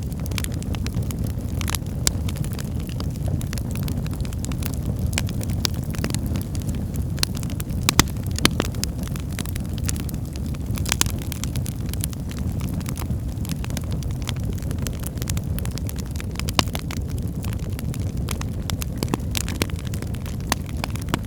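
Firewood burning in a fireplace: a steady low rumble of flames with frequent sharp crackles and pops, a louder pop about eight seconds in.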